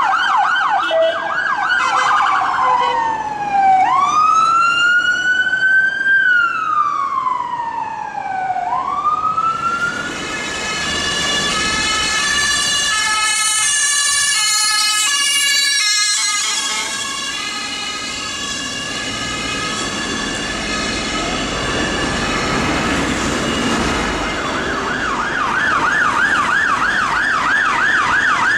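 Electronic sirens of UK police vans and ambulances on an emergency run. A fast yelp gives way to slow wail sweeps that rise and fall. A stepped alternating siren follows in the middle, and a fast yelp returns near the end.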